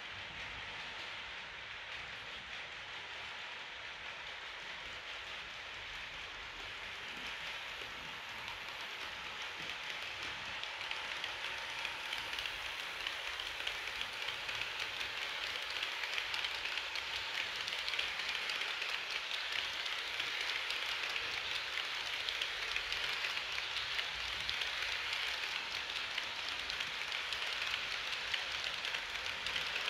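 HO-scale model train, an SBB Re 4/4 IV locomotive model hauling passenger coaches, running along the track: a steady rushing rattle of small wheels on rails with fine ticking, growing louder over the first half as it comes closer.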